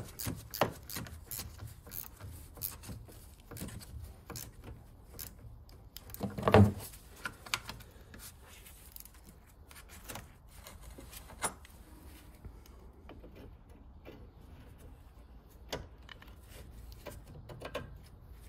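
Hand tools clicking and clanking on a car battery's terminal and hold-down clamp: a run of small metallic clicks, one louder thump about six and a half seconds in, then sparser light taps.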